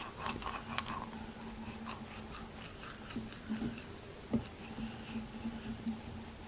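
Knife scraping and cutting on a scaled perch while it is filleted: a run of small rasps and clicks, over a steady low hum.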